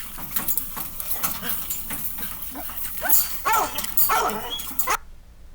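Several Plott hounds barking and baying, one call after another. The sound cuts off abruptly about five seconds in.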